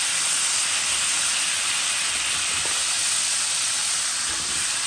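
Flattened chicken halves frying in hot oil in a metal frying pan: a steady sizzle.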